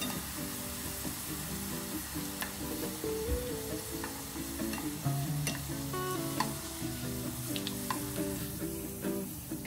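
Lotus root slices deep-frying in a pot of oil, turning pale golden, with a steady sizzle and a few light clicks as wooden chopsticks turn and lift them.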